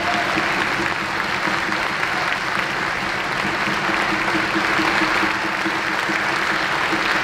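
Sustained applause from the audience and orchestra, steady throughout.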